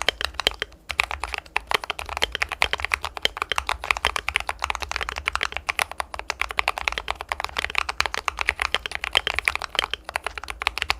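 Continuous fast typing on a fully lubed 'Balhae Blue' mechanical keyboard: a dense stream of crisp keystroke clacks, with a short pause about a second in.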